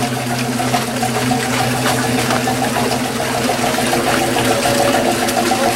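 Steady machinery hum with a fast, even pulse, over a constant rush like running water.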